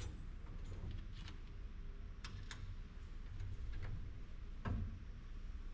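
Irregular light metallic clicks and taps as steel bracing bars and bolts of a lifting frame are handled in a car body shell, over a low steady hum.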